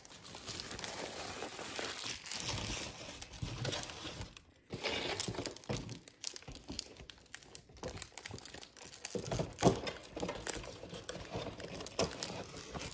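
A small wrapper crinkling as it is handled and cut open with scissors, irregular rustling with a few sharper crackles, the loudest about two-thirds of the way through.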